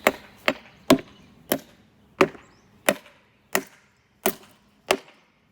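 A chair being beaten apart: nine sharp, cracking blows at a steady pace, about one every two-thirds of a second.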